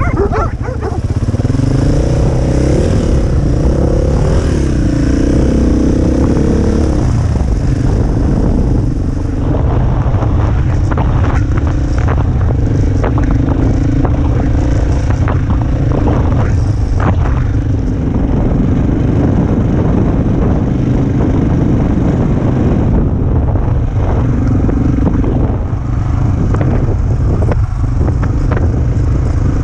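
KTM dirt bike engine running under way, its pitch rising and falling over the first several seconds as it revs, then holding steadier. Scattered short knocks and rattles run through it.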